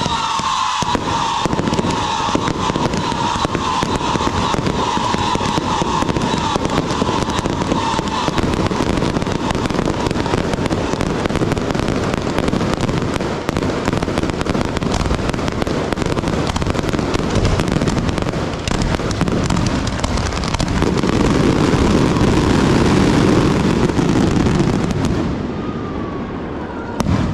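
Fireworks show: a dense, continuous crackle of many rapid firework pops, with a whistling tone that falls slowly in pitch over the first several seconds. The barrage grows louder and deeper about 20 seconds in, then fades near the end.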